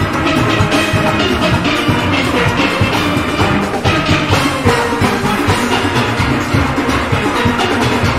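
A steel orchestra playing: many steelpans together over a steady drum and percussion beat.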